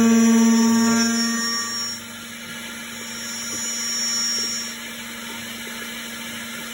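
DIY mini CNC milling machine running: a steady motor whine with a constant pitch, loud for the first couple of seconds, then dropping to a quieter level with a brief swell in the middle.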